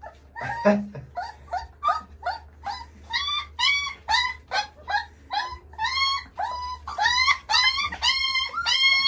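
Three-week-old Carpathian Shepherd puppies whining: high squealing cries, one after another, about two a second.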